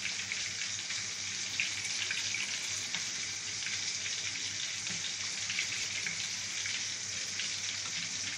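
Steady hiss with faint crackles from a large aluminium pot of sautéed vegetables and meat on the stove as water is poured in from a plastic bottle and stirred with a ladle.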